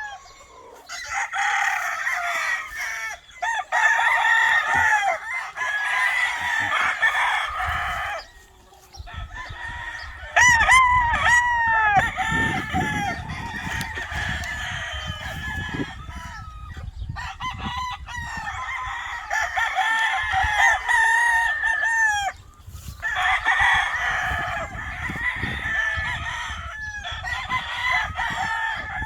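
Many game fowl roosters crowing one over another almost without a break, with hens clucking among them.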